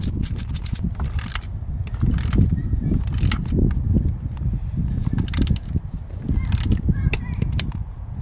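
Small 49cc pit-bike engine running with an uneven, rough beat and a sharp click or pop about once a second.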